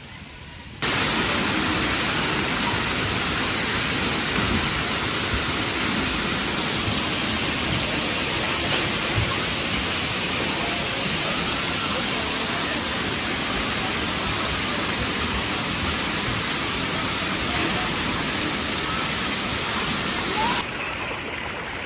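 Water pouring from splash-pad spouts and spray pipes and splashing onto the play deck: a steady rushing hiss that starts suddenly about a second in and drops in level near the end.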